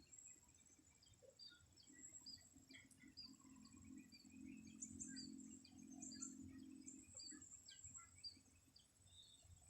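Faint chorus of many small birds chirping and calling at random, over a steady high insect trill such as a cricket. A low hum swells up in the middle and fades again.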